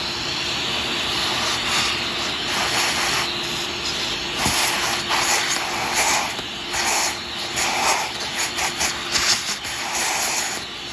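Vacuum cleaner running, its hose nozzle sucking up metal drilling filings from a freshly drilled bolt hole in a chainsaw engine case. A steady rush of air with a faint hum, getting louder and uneven from about four seconds in as the nozzle is moved around the hole.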